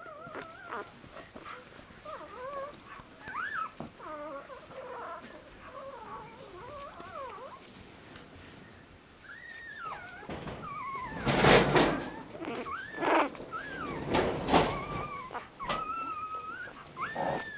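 Newborn mixed-breed puppies squeaking and whimpering in thin, high, wavering cries, sometimes two at once. In the second half come some louder knocks as they move.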